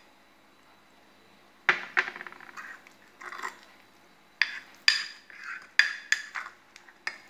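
Metal spoon clinking and scraping against a ceramic mug while stirring a thick, crumbly mix of bread crumbs, crushed biscuits and milk. The strokes are irregular, begin about two seconds in and come more often in the last few seconds.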